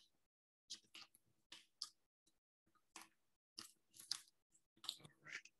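Faint, scattered crinkles and rustles of plastic packaging being handled and cut open, a dozen or so short crackles over a few seconds.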